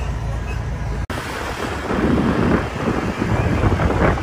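Wind buffeting the microphone, with a low rumble of road traffic beneath it; the sound cuts out for an instant about a second in, then the wind noise swells in gusts.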